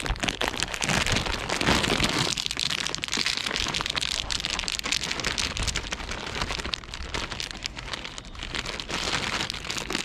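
Steady, dense crackling and rustling of a plastic bag of nuts being handled while walking.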